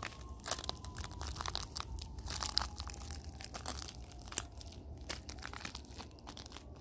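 Footsteps crunching along a fallen pine log and the dry pine needles and dead twigs beside it, irregular steps with many sharp crackles.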